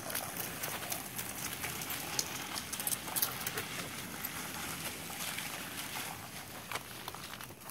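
Hurried footsteps crunching and crackling over a thin crust of icy snow, a dense run of sharp crunches that eases off a little near the end.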